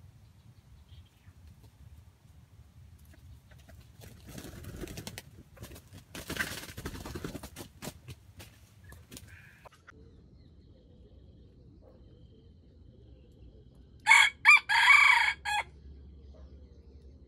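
Red junglefowl rooster crowing once, loud and short, in a few quick broken parts lasting about a second and a half, near the end. Earlier, a few seconds of rustling in dry leaf litter.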